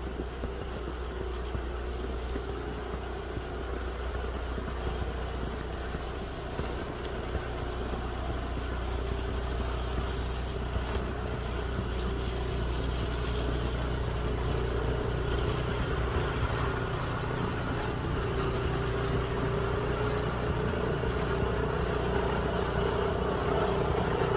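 Steady motor-vehicle noise: a continuous low rumble with a faint steady hum, the sound of a vehicle running or driving.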